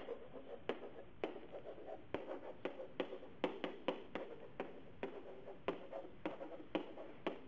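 Stylus writing on a digital writing surface: irregular sharp taps, about two or three a second, over faint scratching as the pen strokes out handwriting.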